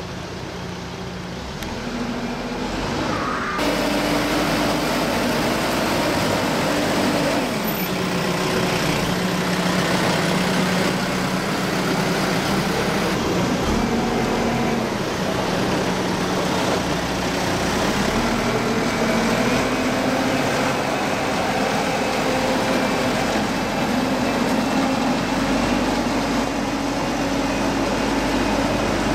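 Backhoe loader's diesel engine running, its pitch stepping up and down repeatedly as the engine speed changes while it works. The engine gets louder about three and a half seconds in.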